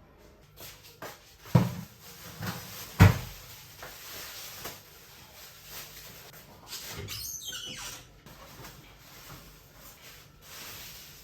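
Household knocks and bumps of things being handled and set down, with two sharp thuds about one and a half and three seconds in and a short scraping rustle a few seconds later.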